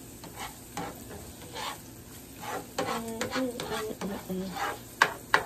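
Diced onion and green pepper sizzling on a stovetop griddle pan while a spoon-spatula scrapes and stirs them in repeated short strokes. Two sharp taps near the end are the loudest sounds.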